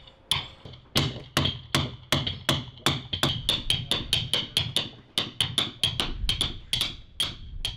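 Wooden caulking mallet striking a caulking iron, driving cotton into the seams of a wooden boat hull: quick rhythmic blows, about three to four a second, each with a short high ring. The blows thin out near the end.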